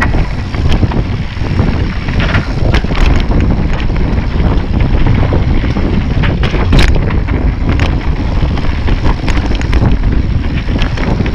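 Mountain bike rattling over a rough dirt trail, with heavy wind buffeting the microphone. Frequent sharp knocks and clatters come through as the bike jolts over bumps.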